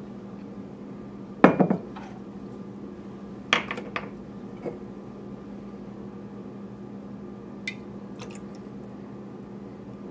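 Measuring cup and spoon clinking and knocking against a metal saucepan and a glass bottle while chai concentrate is measured out and tipped into the pan: a handful of short sharp clinks, the loudest about a second and a half in, over a steady low hum.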